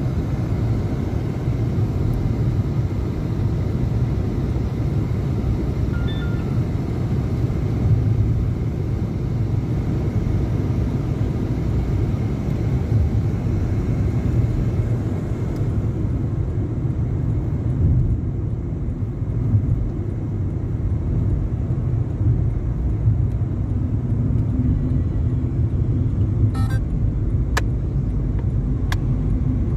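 Steady road and engine rumble heard from inside a moving car's cabin at highway speed, with a few brief clicks near the end.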